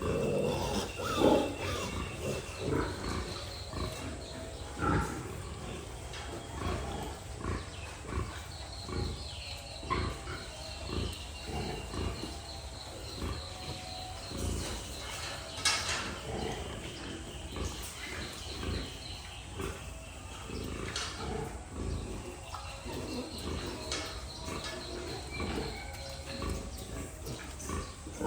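Pigs grunting in a steady rhythm of short low grunts, about two a second, with some thin high-pitched calls over them at times.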